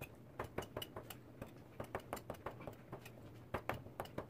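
Chef's knife slicing mushrooms on a plastic cutting board: faint, quick taps of the blade on the board, about four or five a second in an uneven rhythm.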